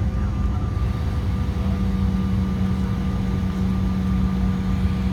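Jet airliner's engines and air system heard from inside the passenger cabin: a steady low rumble with a steady hum that grows stronger about a second and a half in.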